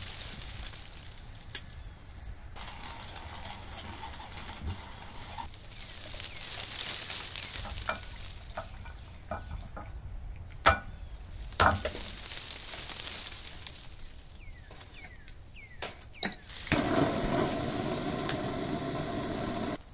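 Soft food-prep handling: a hand-cranked spice grinder turning at first, then wet marinated pork being handled with a couple of sharp knocks near the middle. In the last three seconds a butane torch hisses steadily as it fires into lump charcoal to light it.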